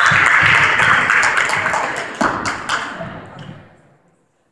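Spectators in a gym cheering and clapping, loud at first and then dying away over about three seconds, with a few sharp claps or taps on the way down; the sound cuts off near the end.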